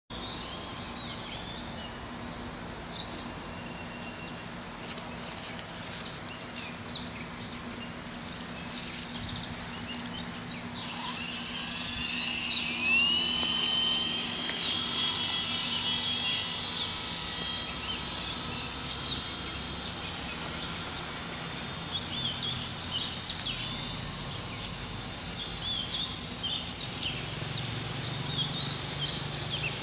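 WLtoys V913 electric RC helicopter's motor and rotor starting suddenly about a third of the way in with a high whine that rises as it spools up, then running steadily as it flies. Birds chirp throughout.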